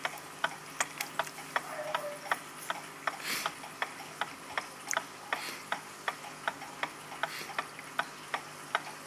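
Mechanical clock ticking steadily, about three sharp ticks a second.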